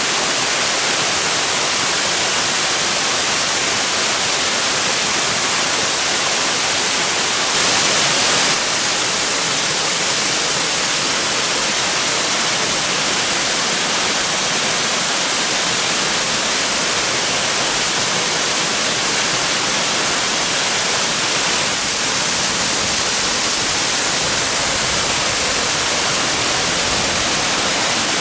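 Waterfall: a steady rush of falling water, even and unbroken, with a brief louder swell about eight seconds in.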